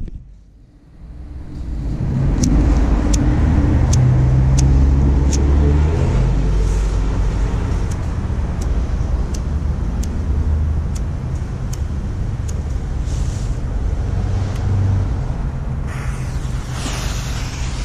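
An engine running close by: a steady low rumble that builds over the first two seconds and then holds, with faint clicks about every three quarters of a second through most of it.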